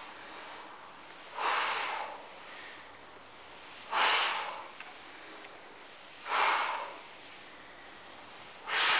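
A woman breathing out hard in a steady rhythm of exertion during kettlebell twists: four loud, hissing exhalations, about two and a half seconds apart.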